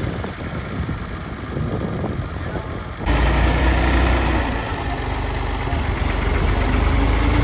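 Farm tractor's diesel engine running steadily. For about three seconds it is heard from farther off and quieter; then it comes in close and clearly louder.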